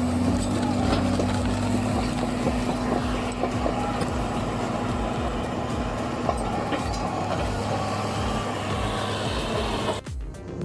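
Heavy machine's engine running steadily under load, with some clatter over it; it cuts off abruptly near the end.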